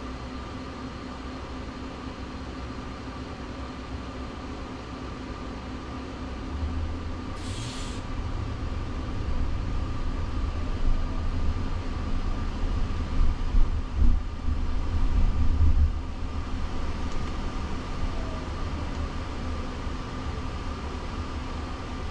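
Road noise inside the cabin of a moving Jaguar I-Pace electric car: a low rumble swells through the middle and eases off, over a steady hum. A short hiss comes about seven seconds in.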